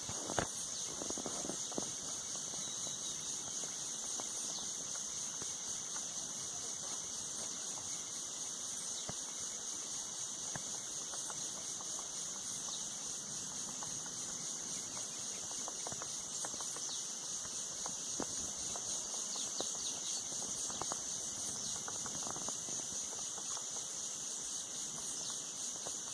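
Steady, high-pitched chorus of insects, a continuous shrill buzz that holds unchanged throughout, with scattered faint clicks and ticks.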